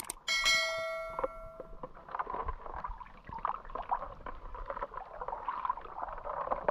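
Water dripping and trickling out of the holes of a perforated plastic-bottle shrimp trap held above a creek, a patter of small splashes. Just after the start, a single sharp ringing note that dies away over about a second and a half.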